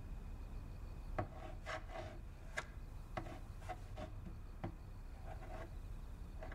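Faint, short rubbing strokes on a wooden tabletop as a hand traces a figure across it, about ten strokes a fraction of a second apart.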